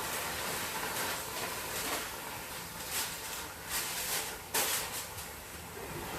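Kitchen handling noises: several short rustling or scraping sounds, the loudest about four and a half seconds in, over a steady hiss.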